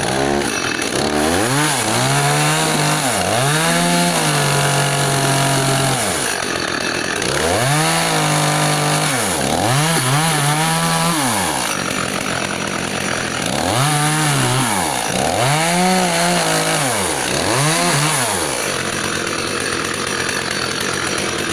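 Two-stroke chainsaw revved up to full throttle and let fall back again and again, held high for a second or two at a time, as its chain is pressed against a leather chainsaw boot to test its cut protection. The engine settles to a lower run for the last couple of seconds.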